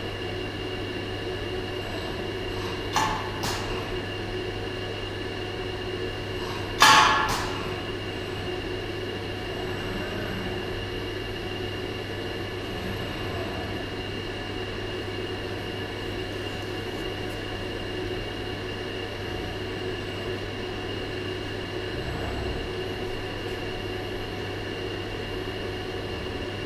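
Steady mechanical hum with a few fixed tones from a robotic welding cell, the welding robot arm and positioner running. Two light clicks come about three seconds in, and a louder sharp clank near seven seconds.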